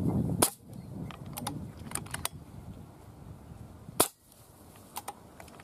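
Two sharp shots from a scoped air rifle, about three and a half seconds apart, fired at a water monitor lizard, with a few lighter clicks in between.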